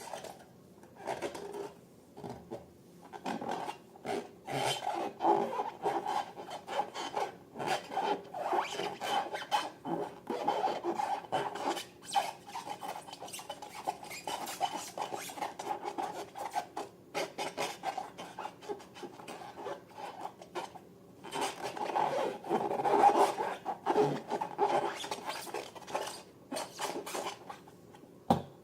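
Repeated rubbing and scraping strokes from slime and balloons being worked by hand, irregular and dense, with a quieter pause a little past the middle.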